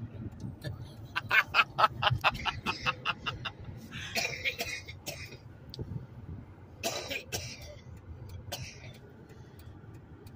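A woman's coughing fit: a quick run of short coughs about a second in, then a few separate, louder coughs spaced out over the next seconds.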